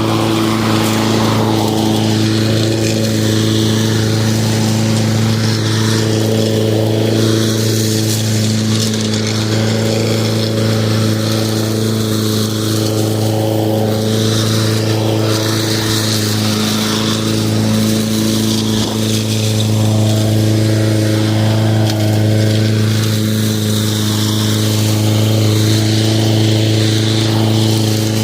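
Lawn mower engine running at a steady speed, a constant even hum with no change in pitch.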